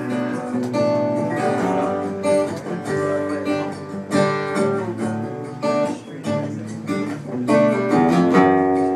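Acoustic guitar strumming chords in an instrumental break of a song, with no singing.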